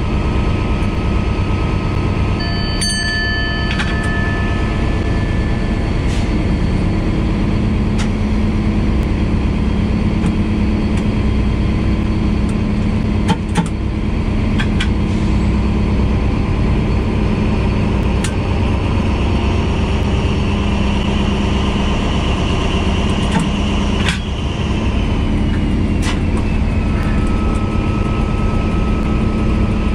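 BB 67400 diesel-electric locomotive's engine running steadily, heard from inside the driver's cab as the train moves off slowly. A short high electronic beep sounds about three seconds in, and a few clicks come from the cab.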